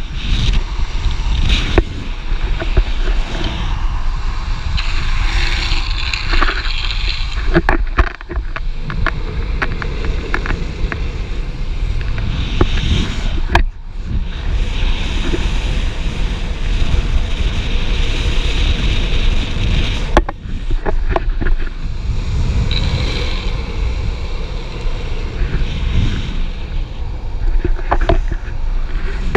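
Wind buffeting an action-camera microphone on a pole, with the rolling roar of longboard wheels on asphalt at downhill speed. There are stretches of brighter hissing where the wheels scrub sideways in slides.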